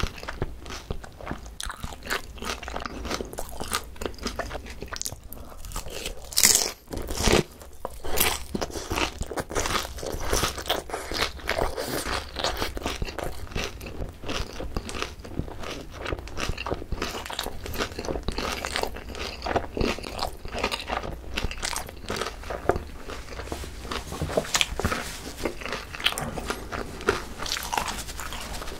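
Close-miked chewing of crispy boneless fried chicken (pa-dak, topped with shredded green onion): a steady run of crunches and bites, with one loud crunch about six and a half seconds in.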